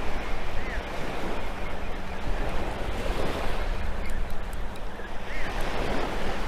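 Small surf waves washing up onto the sand at the water's edge, swelling twice, with wind rumbling on the microphone.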